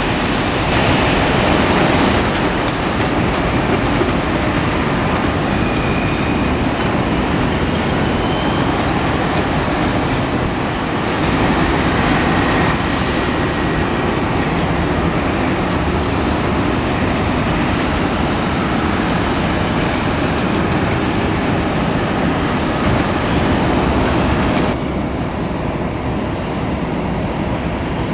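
Steady broad rumble of jet aircraft engines across an airport apron, with a slight drop in level about 25 seconds in.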